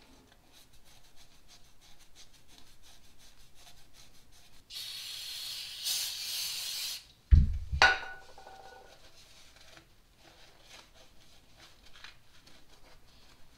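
Scotch pad scrubbing an engine's gasket sealing surface in quick, faint strokes. About 5 seconds in, an aerosol can sprays in a steady hiss for about two seconds. Then comes a loud thump with a brief metallic ring, and the scrubbing resumes.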